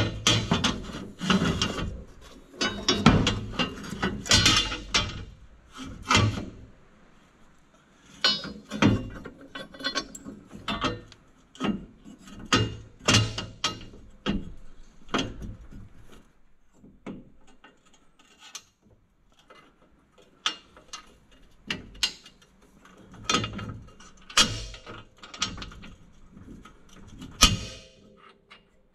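Irregular metallic clanks, knocks and scraping as a steel lift-kit bracket is worked by hand into place against the frame of a side-by-side's rear chassis.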